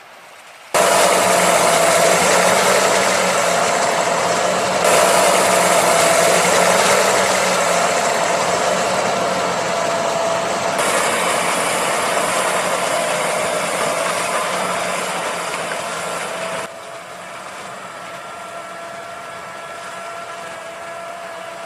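Fendt Vario 826 tractor running under load while pulling a five-furrow reversible plough, a steady engine sound with a constant whine through it. The sound jumps abruptly in level several times and is quieter for the last few seconds.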